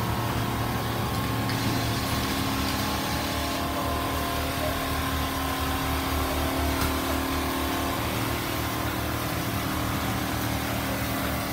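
Computerized quilting machine sewing a comforter, its stitching head running with a steady mechanical hum, over the drone of more quilting machines running on the factory floor.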